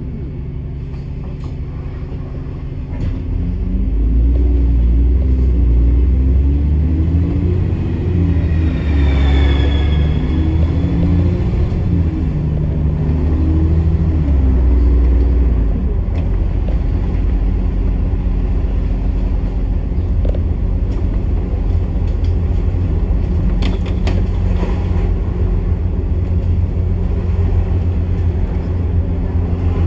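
Bus engine heard from inside the bus. It runs steadily at first, then from about four seconds in pulls harder, its note climbing and dropping in steps. A brief high falling whine comes about ten seconds in, and after about sixteen seconds it settles into a steady run.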